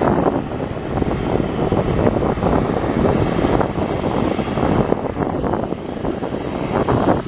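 Airbus A330-200's twin Rolls-Royce Trent 772B turbofans running at low taxi power as the airliner rolls slowly and turns to line up on the runway, a steady rough rumble.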